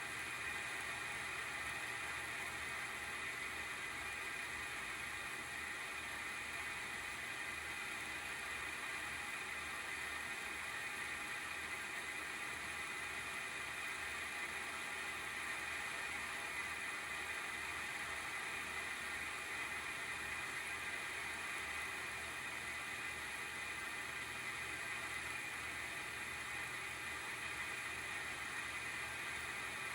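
ASUS GeForce RTX 3060 12GB Phoenix graphics card's single cooling fan (FDC10U12D9-C) running under benchmark load with a steady, high-pitched whir and a low fluttering throb. The fan is faulty, which the owner puts down to a wobbling shaft or a bearing run dry of oil.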